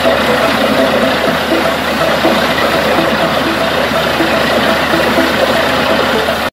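Borewell drilling rig running steadily while water blown up out of the casing gushes and splashes: the new bore has struck water. The sound cuts off suddenly at the end.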